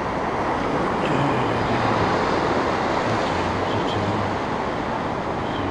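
Ocean surf washing up the beach: a steady rush of breaking waves and foam, swelling a little a second or two in.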